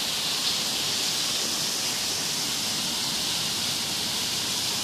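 A steady, even high hiss of background noise, with no distinct knock or click standing out.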